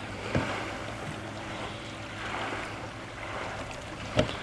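An oar knocking against a small plastic dinghy and its oarlock as it is fitted, twice: once just after the start and once, louder, near the end. Steady wind and water noise fill the gaps.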